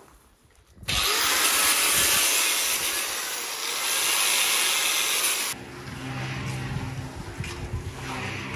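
Angle grinder cutting through steel rebar mesh: a loud, even grinding noise that starts about a second in and stops abruptly after about four and a half seconds. A quieter steady low machine hum follows.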